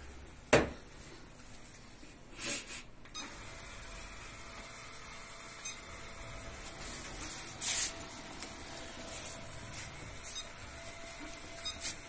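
ILIFE X785 robot vacuum in mopping mode starting off. A sharp click comes about half a second in. From about three seconds in the robot runs with a steady hum and a faint whine, with a few brief hissy scrapes as it moves over the floor.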